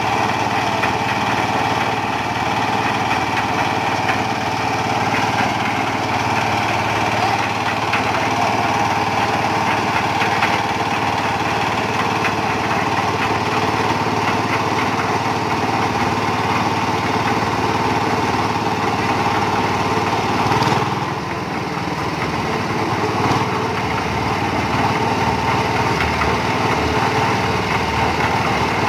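Portable concrete mixer running steadily on test, its small engine driving the turning drum. About two-thirds of the way through the sound briefly dips and its low hum changes, then it runs steadily again.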